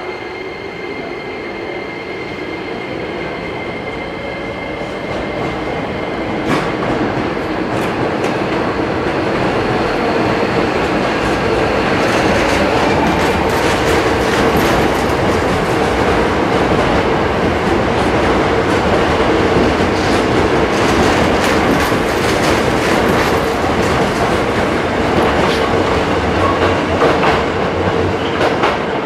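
Hankyu 1000 series electric commuter train pulling away and running past, getting louder as it picks up speed, its wheels clicking over the rail joints, with a steady motor whine.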